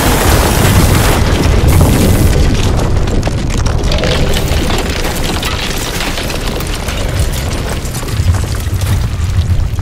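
Earthquake sound effects for a building-collapse simulation: a deep, loud rumble with crashing and clattering of falling masonry and debris. The crashing noise is thickest in the first couple of seconds and then thins out, while the rumble carries on.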